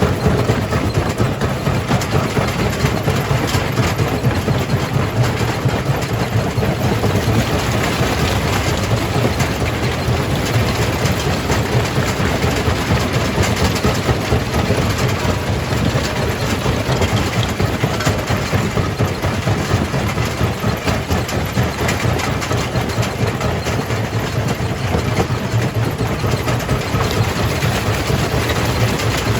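Jaw crusher running under load. A steady low drone sits under a dense, continuous crackle of rock being broken.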